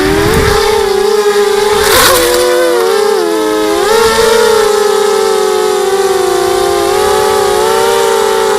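250-size FPV quadcopter's brushless motors and propellers whining as it flies. The pitch dips and recovers with throttle changes about two seconds and three to four seconds in, then holds steady.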